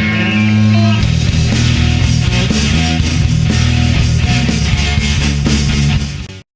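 Rock music with guitar: a full band comes in about a second in and plays loud and dense, then the music cuts off abruptly just before the end.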